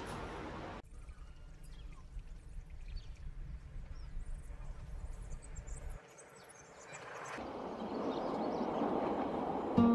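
Railcar running past, cut off abruptly under a second in; then a faint low rumble with scattered small knocks. Over the last few seconds a rushing noise grows steadily louder as a train approaches along the track.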